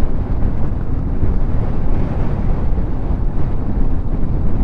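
Wind buffeting the microphone of a moving motorcycle: a loud, steady low rumble.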